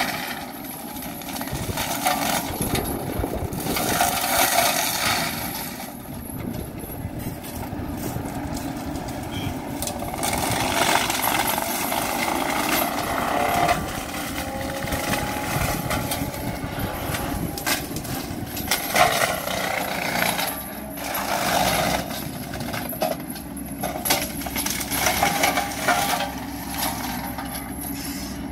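Wacker Neuson ET65 mini excavator's diesel engine running under load while its forestry mulcher head shreds shrubs and branches. Irregular sharp cracks and snaps of wood and debris come over the engine's steady drone.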